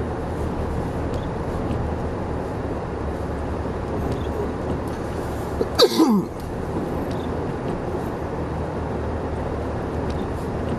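Steady cabin noise of a car driving on a snow-covered road. About six seconds in, a person sneezes once, a short loud burst that falls in pitch.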